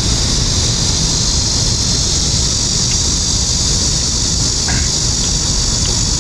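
Wind buffeting the microphone: a steady, fluttering low rumble under a constant high hiss, with no distinct event.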